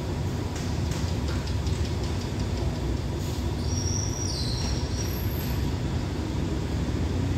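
Diesel-hauled passenger train standing at the platform, its engine idling with a steady low rumble. A short high squeal comes in about four seconds in.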